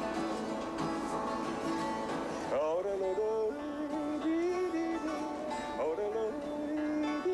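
Country-style music led by acoustic guitar, with a lead line whose notes slide up in pitch about two and a half seconds in and again near six seconds.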